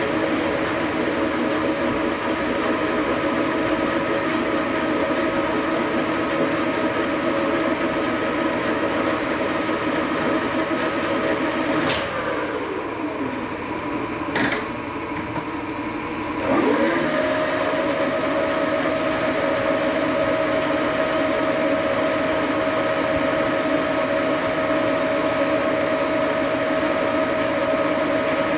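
Engine lathe running with a steady machine whine of several held tones while turning a metal workpiece. About twelve seconds in there is a sharp click and the pitch falls as the spindle slows, with a second click a couple of seconds later. About four seconds after the slowdown the pitch rises again and the lathe runs steady to the end.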